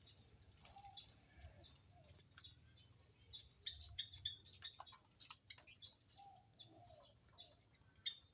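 Faint, short, high-pitched chirps of small birds, coming irregularly, with a couple of softer, lower calls in between.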